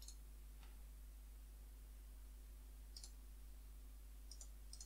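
Near silence: faint room tone with a steady low hum and a handful of short, faint clicks spread through it.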